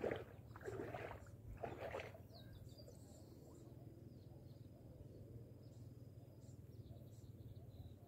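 Faint open-air ambience: a low steady rumble with small high bird chirps scattered throughout. In the first two seconds there are three short, louder noisy sounds of unclear source.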